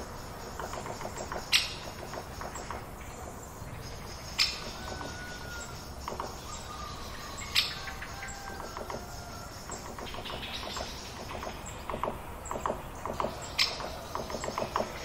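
Countryside woodland ambience: birds chirping and calling over a steady background hiss. Four sharp high notes stand out a few seconds apart, and runs of quick, rapidly repeated calls come near the start and again near the end.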